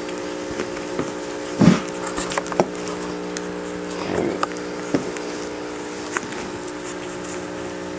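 Two-week-old collie puppies squirming against their mother, giving a few short grunts, the loudest nearly two seconds in and another about four seconds in, with small clicks from their movement. A steady low hum runs underneath.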